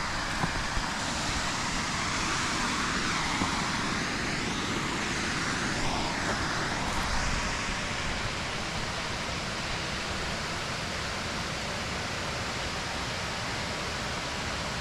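Waterfall rushing: a steady, even hiss of falling water with no break.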